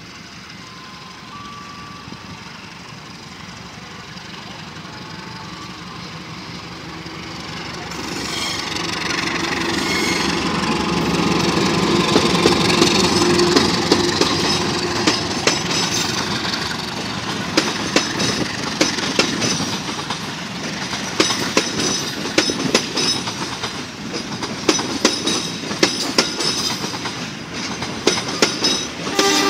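A CC 201 diesel-electric locomotive approaches and passes close by with its engine running, its sound building to a peak about 13 seconds in. A string of passenger coaches follows, their wheels clicking over the rail joints in a steady rhythm.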